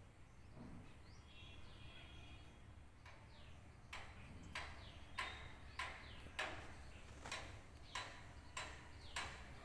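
A small bird chirping over and over, short sharp chirps, some falling in pitch, coming about one to two a second from about four seconds in; fainter tonal calls are heard earlier.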